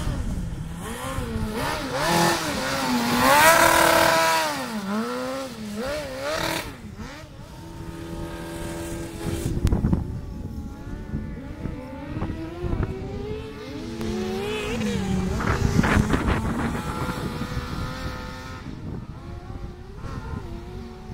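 Racing engine revving hard and easing off again and again, its pitch climbing and dropping through the gears, with a stretch held at steady revs about eight seconds in and a few sharp knocks.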